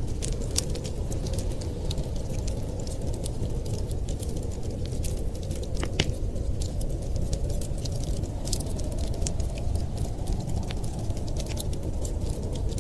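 Wood fire crackling, with scattered sharp pops and a louder snap about halfway through, over a steady low rumble.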